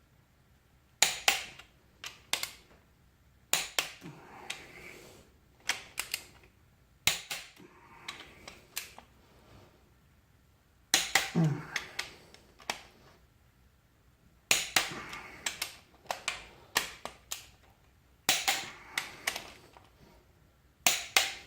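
Wrench ratcheting and torque-wrench clicks on engine bolts in a 6.0 L LQ4 V8 block: short groups of sharp metallic clicks, each group a few strokes, repeated about eight times with pauses between as the bolts are snugged down to torque.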